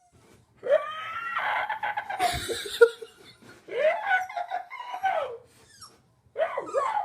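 A man making silly, wordless vocal noises at dogs: a string of high, wavering calls that swoop up and down in pitch, with a thump about two seconds in.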